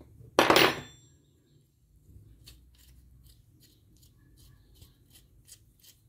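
A single metal clank with a short high ring about half a second in, then a run of faint, light metallic clicks and taps as a steel wrench and a homemade pulley puller are handled.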